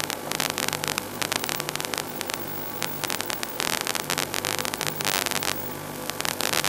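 Crackling static over a steady low electrical hum.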